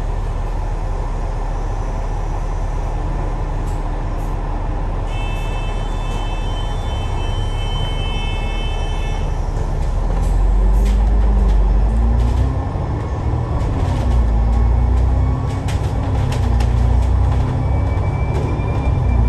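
Alexander Dennis Enviro500 double-decker bus idling at a stop, heard from the upper deck. A high electronic warning tone sounds for about four seconds as the doors close. Then, about ten seconds in, the diesel engine rises in pitch and loudness as the bus pulls away, its note dipping twice as the automatic gearbox changes up.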